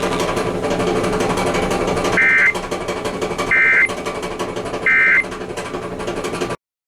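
Three short data bursts of an Emergency Alert System end-of-message code, each a rapid two-tone warble about a third of a second long, spaced about 1.3 seconds apart, over a steady hiss and hum. The audio cuts off abruptly near the end.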